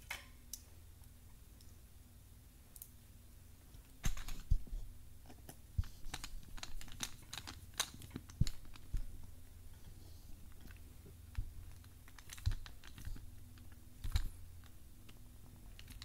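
Small clicks, taps and scrapes of a screwdriver tightening the brass terminal screw on a plastic replacement plug while the plug and wire are handled. Sparse at first, much busier from about four seconds in.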